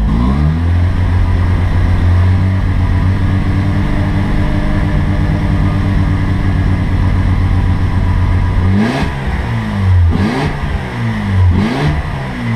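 Mazda RX-7's fuel-injected 13B two-rotor rotary engine running steadily after a brief throttle blip at the start. Near the end the throttle is blipped three times, revs rising and falling about a second and a half apart. The freshly unflooded, still-cold engine is struggling to stay running and needs to warm up.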